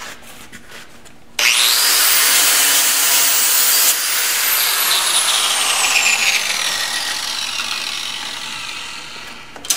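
Angle grinder switched on about a second and a half in, its disc lightly buffing mill scale off a steel weld test plate with a high whine; after a couple of seconds it is switched off and winds down, the whine falling steadily in pitch as it fades.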